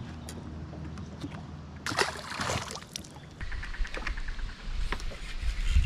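Fishing boat on the water: a steady low hum, with a short rush of water or wind about two seconds in and a few light knocks. A heavier low rumble sets in a little past halfway.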